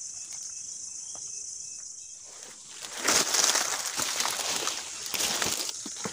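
Footsteps and rustling through leaf litter and undergrowth while walking in forest, over a steady high insect drone. The rustling becomes loud and close about three seconds in.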